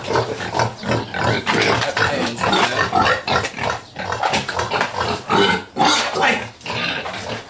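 Pigs calling out loudly in many short, harsh, irregular cries, as they are handled for deworming.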